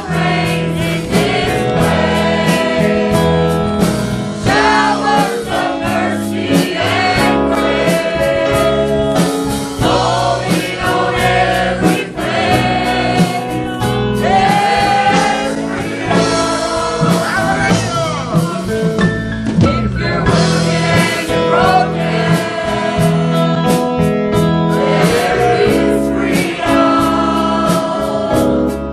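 Gospel worship music: a choir singing with band accompaniment over a steady beat.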